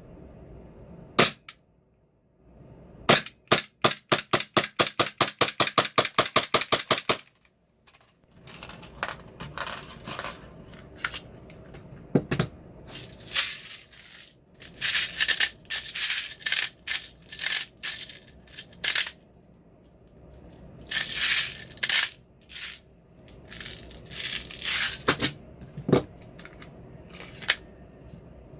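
Airsoft Glock 19 gas blowback pistol firing: a single shot, then a fast string of about twenty shots at roughly five a second. This is followed by irregular clusters of sharp clicks and rattles.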